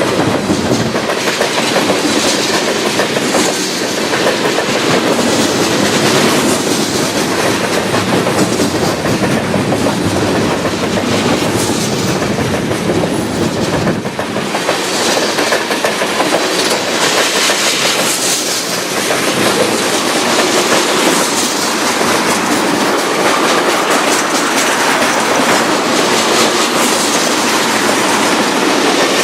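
CN freight train rolling past at close range: a steady rush of steel wheels on rail with repeated clickety-clack as the wheels cross rail joints.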